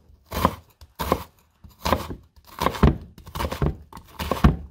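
Chef's knife chopping an onion on a wooden chopping board: a steady run of knife strokes knocking into the board, about one and a half a second.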